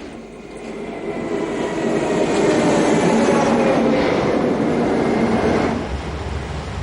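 Train running on the rails: the running noise swells over the first two seconds, carrying a faint, slowly falling whine, then drops off suddenly about six seconds in.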